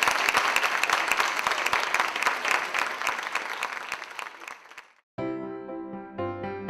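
Audience applauding, the clapping thinning and fading out over about five seconds. After a brief silence, gentle piano music begins.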